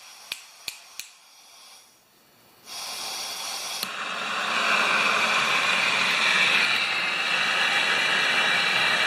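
A few light clicks, then about three seconds in a handheld gas torch lights and burns with a steady rushing hiss that grows a little stronger and holds. The flame is heating a seized bolt on the mower to free it.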